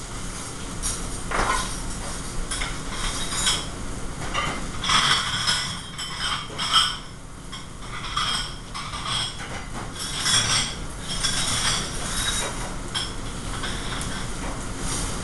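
Busy restaurant kitchen line: plates, pans and utensils clattering and clinking at irregular moments over a steady low hum.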